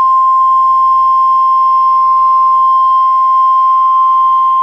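NOAA Weather Radio warning alarm tone: a single loud, steady, high-pitched tone held without a break. It is the alert signal that an urgent warning broadcast, here a severe thunderstorm warning, is about to follow.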